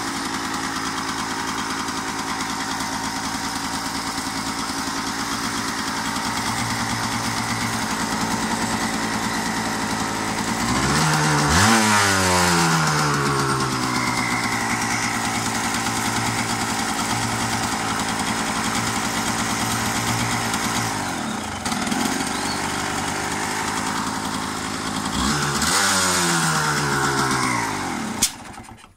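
Yamaha DT200R's two-stroke single-cylinder engine running on a homemade breadboard CDI ignition: idling steadily, revved up twice, then shut off with a click just before the end.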